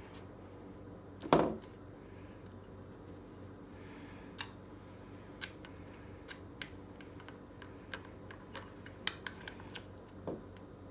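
An Allen wrench working hex screws loose on a large-scale RC truck: one sharp knock about a second in, then light scattered clicks and ticks of the tool and screws, and another knock near the end.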